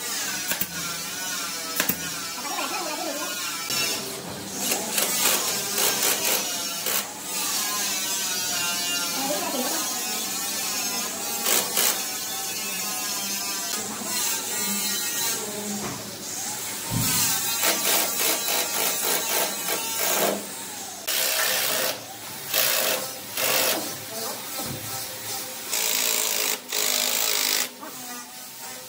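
A person's voice, possibly with singing or music, over intermittent workshop noise: sharp clicks and short bursts of a machine or tool.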